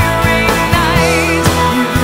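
Pop-rock song: a singing voice over a steady drum beat.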